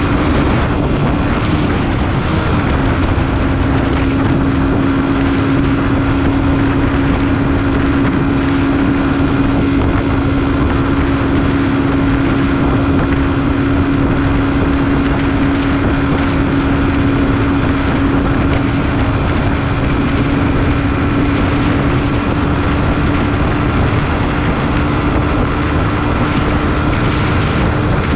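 Beta RR 125 LC enduro motorcycle's single-cylinder engine running at steady revs, its pitch dropping slightly about two and a half seconds in, with wind rushing over the microphone.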